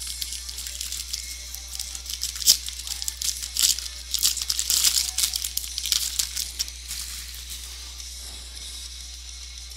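Wrapper of a pack of baseball cards being torn open and crinkled by hand, with one sharp snap about two and a half seconds in and the crackling easing off after about seven seconds.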